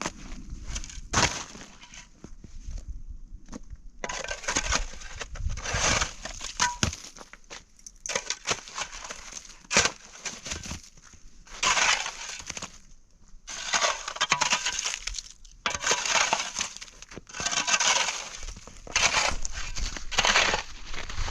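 Repeated crunching, scraping strokes, one roughly every two seconds, with a few sharp knocks in between.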